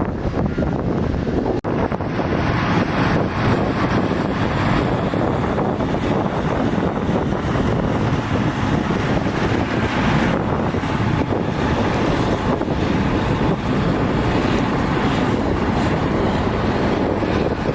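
Wind buffeting the microphone over the steady, low running of heavy earthmoving machinery. There is a brief dropout about a second and a half in.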